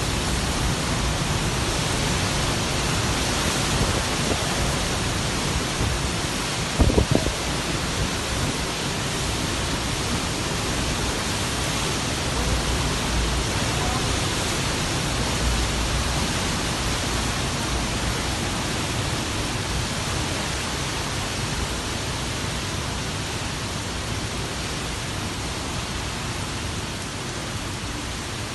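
Typhoon: heavy rain pouring and strong wind blowing steadily, with gusty low rumbling underneath. A brief clatter of sharp knocks about seven seconds in.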